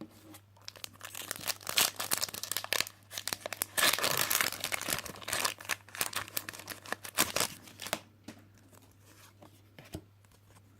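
Foil Pokémon card booster pack being torn open and its wrapper crinkled, a dense crackling that lasts about seven seconds and is loudest in the middle, then dies away.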